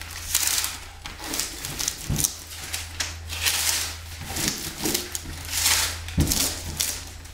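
Hands rubbing and pressing a fiberglass-mesh floor-heating mat down onto a primed subfloor and handling its peel-and-stick tape: irregular rustling and crinkling strokes, one or two a second.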